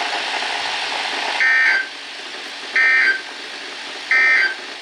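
Emergency Alert System end-of-message signal: three short bursts of digital data tones, about a second and a half apart, marking the close of the alert. A steady radio hiss sits underneath, louder before the first burst.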